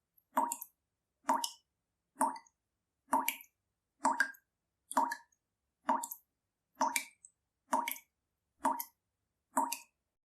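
Water dripping from a leaking tap: single drops landing at a steady pace, a little under one a second, each a short plop.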